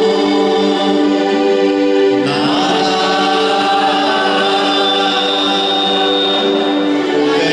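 Choir singing a slow liturgical hymn in long held notes, moving to a new chord about two seconds in.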